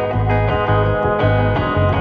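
Background music: a guitar-led instrumental over a bass line that changes note about twice a second.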